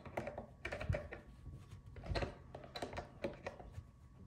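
Light, irregular plastic clicks and taps from handling a fuel pump bucket and bracket while pressing push pins into place.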